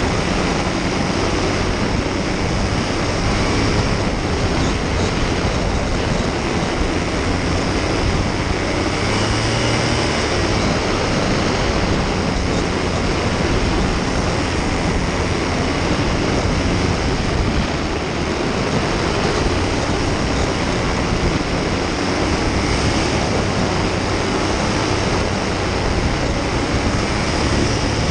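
Paramotor's engine and propeller running steadily in flight, a loud, even drone that does not change.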